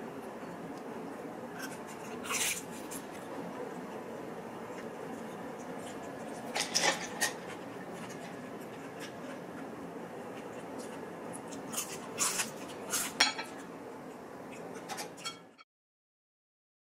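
Chopsticks and a fork clinking and scraping against ceramic dishes during a meal, a few scattered clicks over a steady low room hiss, cutting to silence near the end.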